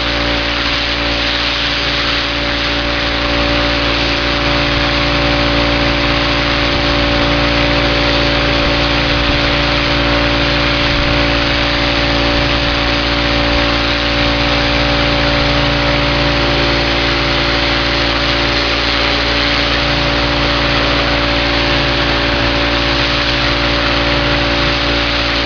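Pressure washer's engine running steadily under the loud hiss of its high-pressure water spray hitting house siding.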